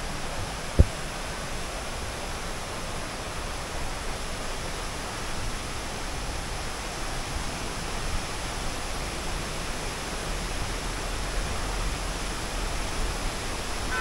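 Steady rushing of a shallow rocky stream tumbling over small cascades, with a single short thump about a second in.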